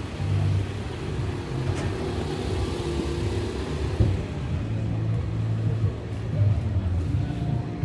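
City street traffic: cars running and passing with a steady low rumble.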